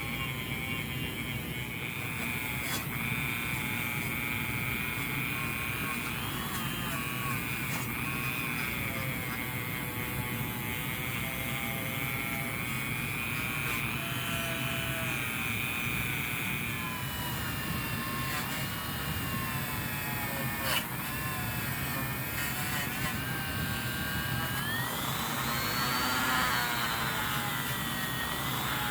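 Rotary tool spinning a black fine-grit scrubby wheel against the steel hacksaw frame: a steady, high motor whine whose pitch sags and recovers as the wheel is pressed on, rising clearly near the end.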